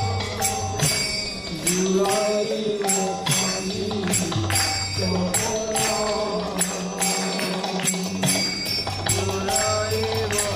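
Devotional kirtan music: voices singing a Bengali bhajan in long bending phrases over a low steady drone, with a steady beat of metal hand-cymbal strikes and a two-headed hand drum.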